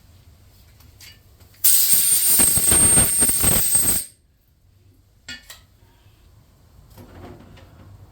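Cordless drill turning a core drill into a stripped head bolt hole in an aluminium LS engine block, running with a steady high whine for about two seconds and then stopping; a small click follows.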